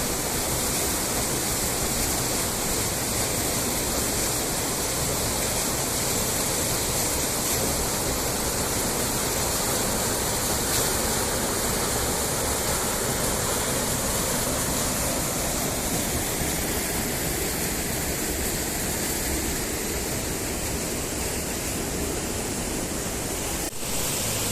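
Waterfall pouring steadily: an even, continuous rush of falling water.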